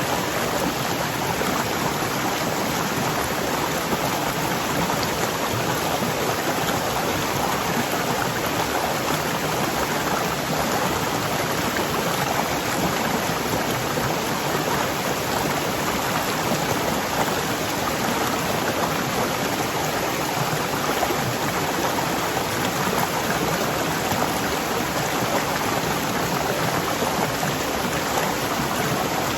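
Fast-flowing waterfall rushing steadily: an even, unbroken wash of falling water that holds the same level throughout.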